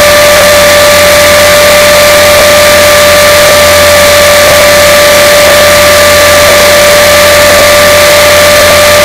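Align T-Rex 450SE V2 electric RC helicopter's motor and drivetrain whining at one steady pitch under a loud, even hiss.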